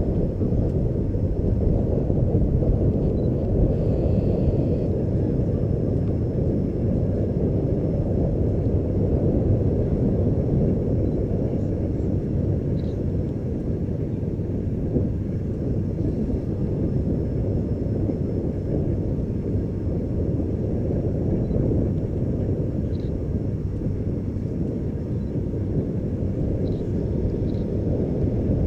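Steady low drone of an ATR 72-600's twin turboprop engines and propellers on approach.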